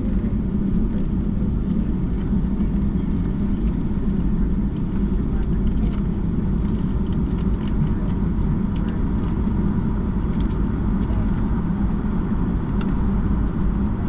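Steady low rumble of cabin noise inside a Boeing 757-200 airliner on the ground after landing, with faint scattered clicks.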